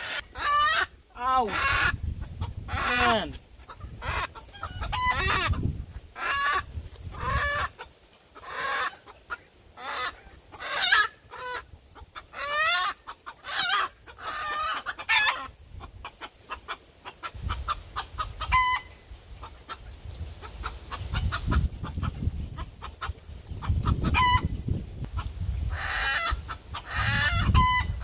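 Chickens squawking and clucking in a pen, with a rooster crowing: a hen protests at being caught and held. The calls come in a dense, irregular series of short cries, several gliding down in pitch.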